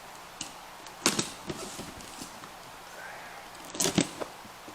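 A taped cardboard box being opened: short, sharp crackles and rustles of packing tape and cardboard coming every second or so, with the loudest pair near the end.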